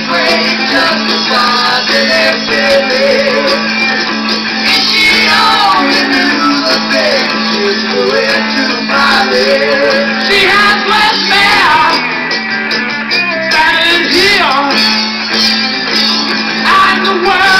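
A 1970 heavy prog-psych rock LP playing on a Bang & Olufsen Beogram TX-2 turntable: guitar with singing over it.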